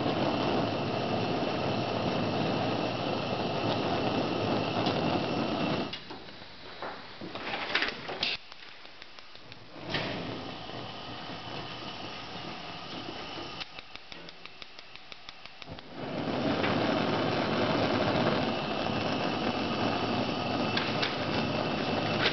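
Gas burner on a Wolf range running with a steady rush of flame, shut off about six seconds in with a few clicks and knocks. Later the spark igniter ticks rapidly for a couple of seconds and the burner lights again, the steady rush of flame returning.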